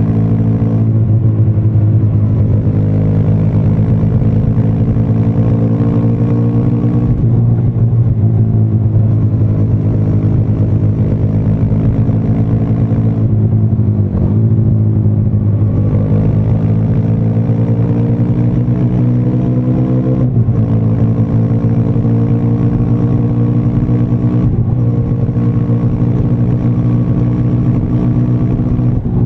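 Triumph Speed 400's single-cylinder engine and exhaust running under way, the revs climbing slowly. The pitch drops briefly several times and then climbs again.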